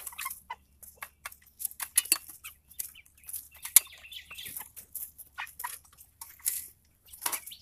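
A flock of seven-week-old Red Ranger broiler chickens clucking in short calls, among scattered brief clicks and rustles.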